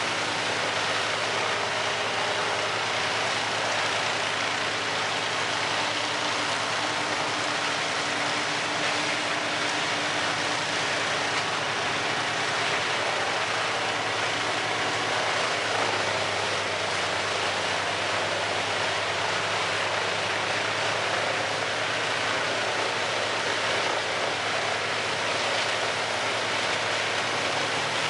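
Wood chipper running steadily under load: a constant engine hum beneath a dense, even hiss of wood being ground up.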